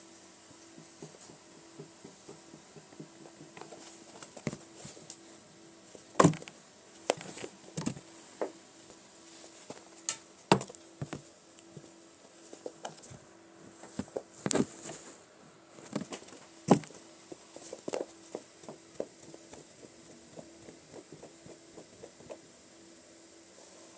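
Kittens playing on carpet right at the microphone: irregular soft thumps, taps and rustles of paws pouncing and batting a fluffy toy, with a few sharp louder knocks, over a faint steady hum.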